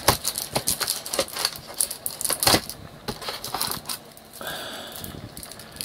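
Rapid light clicks and taps of board-game components and cards being handled in a plastic box insert, with a short rustle about four and a half seconds in as a card deck is lifted out.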